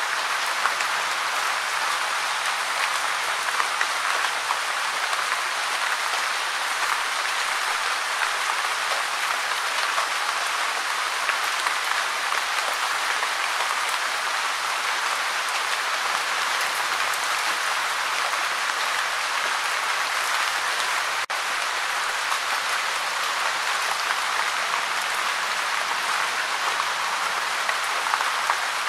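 Gentle, steady rain: an even, dense patter of drops with no letup, broken only by a split-second dropout about two-thirds of the way through.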